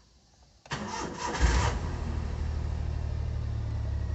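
Toyota Avanza / Daihatsu Xenia engine started: the starter cranks briefly from under a second in, the engine catches with a louder burst about a second and a half in, then settles into a steady idle.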